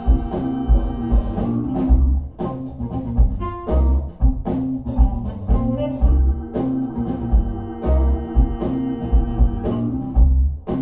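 Background music with drums and a deep bass line under sustained instrument notes, on a steady repeating beat.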